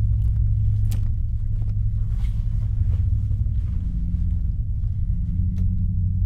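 A steady, deep, low rumble with a few light clicks and knocks over it.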